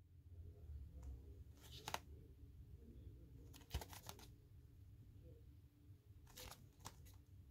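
A gold-foil CD case being handled and turned over in the hands: three brief scrapes and rustles of the packaging, around 2 seconds, 4 seconds and 6.5 seconds in, over a faint low hum.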